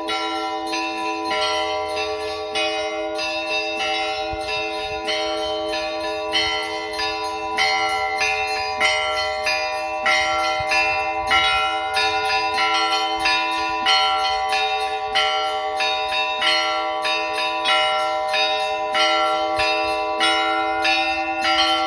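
Russian Orthodox church bells ringing a zvon: small bells struck in a quick, repeating pattern over the steady hum of the larger bells.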